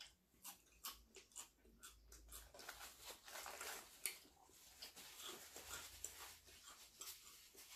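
Faint eating sounds: chewing and crunching of fried chicken and fries, with many small mouth clicks, and a paper napkin rustling in the middle, where one sharp click stands out about four seconds in.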